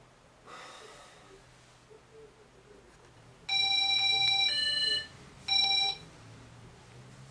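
Electronic ringing tone in three notes, about halfway through: a high note held for about a second, a lower note, then the high note again briefly.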